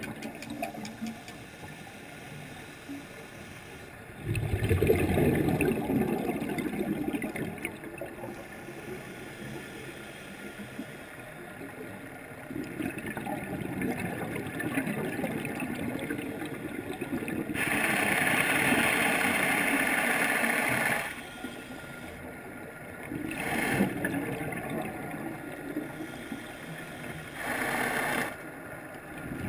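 Scuba diver's own regulator breathing heard underwater: bursts of exhaled bubbles rumbling and gurgling every several seconds, with a longer, brighter hissing burst about two-thirds of the way through, over a steady underwater hiss.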